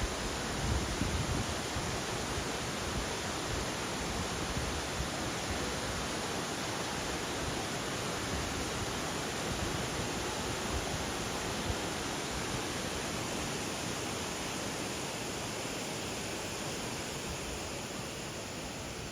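Steady rush of flowing water, a continuous even roar with no pauses, easing slightly near the end.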